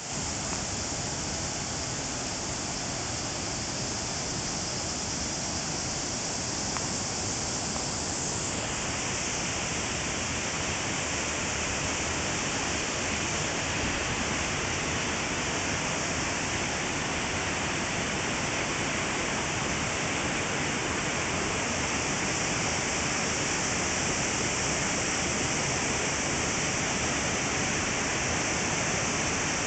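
Waterfall: a steady rush of falling water. The sound turns brighter and hissier about eight seconds in, and grows slightly louder toward the end.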